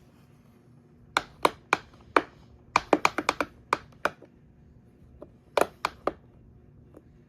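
Sharp hard clicks and knocks, as of the plastic parts of an upright vacuum cleaner being handled: a few single clicks, then a quick run of about eight, then three more a little later.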